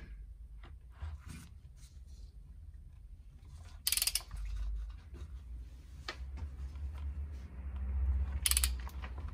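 Hand socket ratchet clicking in two short runs, about four seconds in and again near the end, as a bolt on the engine's cylinder head is tightened. A low steady hum runs underneath.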